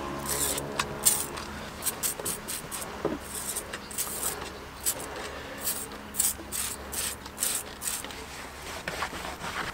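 Tyre dressing being rubbed over a scooter's rubber tyre in repeated short strokes, mixed with brief hissing squirts from a trigger spray bottle.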